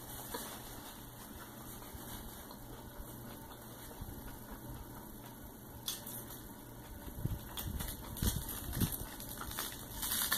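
Chewing a mouthful of cheeseburger over a steady low hum. From about seven seconds in come louder, irregular crackles as a crisp iceberg lettuce leaf is torn and handled on the plate.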